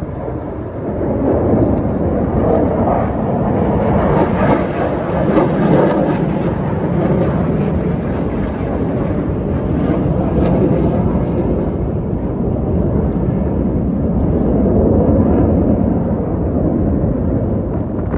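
Jet noise from KAI T-50B aerobatic jets flying overhead: a low rumbling roar that builds about a second in, swells a little past four seconds and again near fifteen seconds, and ebbs between.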